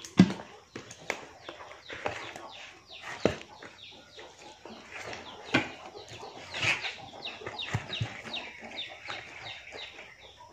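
Birds calling in a quick series of short, high, falling chirps, likely chickens, with a few sharp knocks from handling in between; the loudest knock comes just after the start.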